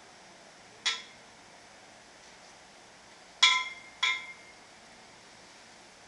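Three short metallic clinks with a brief ring from a metal ladder buckle being handled on a lashing strap: one about a second in, then two close together about half a second apart, the first of these the loudest.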